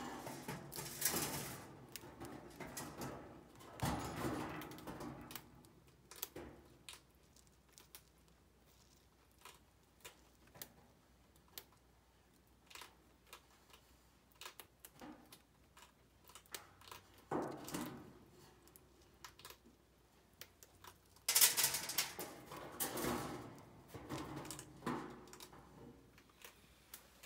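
Chinchilla crunching dry grain flakes, a quick run of small crisp clicks like fast typing, broken by a few louder rustling bursts.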